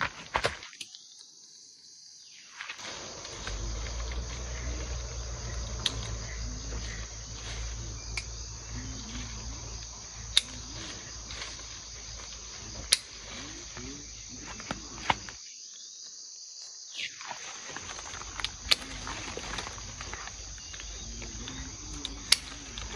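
Hand pruning shears snipping grapefruit stems, a sharp click every few seconds, over a steady chorus of insects.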